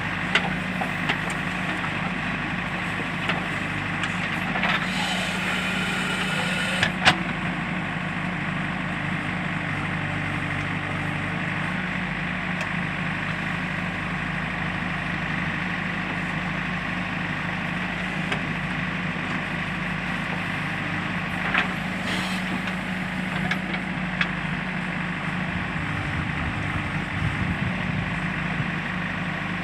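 JCB backhoe loader's diesel engine running steadily, with sharp clicks and knocks now and then and a high hiss from about four and a half to seven seconds in that ends in a sharp click.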